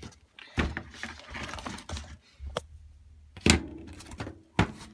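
Handling noises: a handful of sharp knocks and clicks as a foam RC plane's fuselage and wing rod are handled, the loudest about three and a half seconds in.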